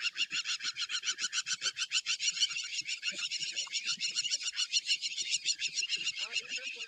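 An animal's rapid high trill, about ten pulses a second, held steadily and stopping near the end.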